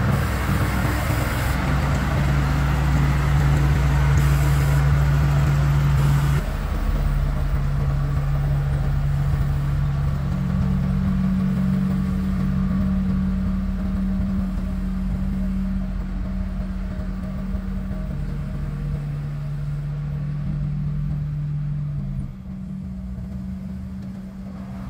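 Diesel engines of Sakai TS150 pneumatic-tyre road rollers running steadily as they compact fresh asphalt. It is a low steady drone whose pitch shifts a few times, and it gets quieter near the end.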